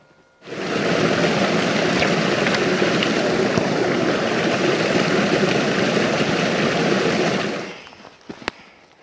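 Shallow creek water running over rocks, a loud steady rush that cuts in abruptly about half a second in and fades out near the end. A single sharp click follows.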